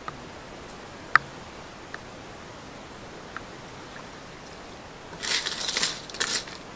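A few light clicks over a faint steady hiss, then about five seconds in, a metal spatula starts scraping and clattering against a wok and the clam shells in it as clams in coconut milk are stirred.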